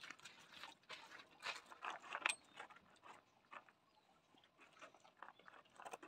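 Dogs crunching dried sardines: irregular crisp crunches and clicks of chewing, thicker in the first two or three seconds, then fainter and sparser.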